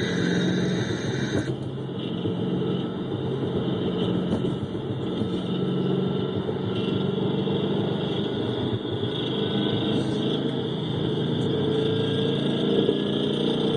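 2011 Mustang GT's 5.0 V8 engine running, heard amplified through a microphone on a cylinder bank, with a knock that the owner suspects is piston slap. The tone changes abruptly about a second and a half in as the feed switches to another microphone.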